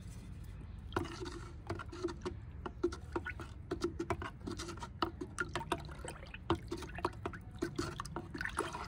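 Liquid fertilizer of fermented rice-starch water and mustard oil cake being stirred in a plastic bucket with a stick. It sloshes and splashes in quick, irregular strokes starting about a second in, mixing the brew after fermentation.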